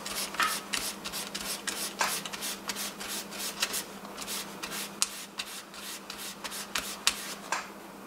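Folded fine 1000-grit sandpaper rubbed quickly back and forth over a thin insulated antenna wire held on cardboard: a run of short scratchy strokes, several a second, stopping shortly before the end. The fine grit is making little headway through the wire's coating.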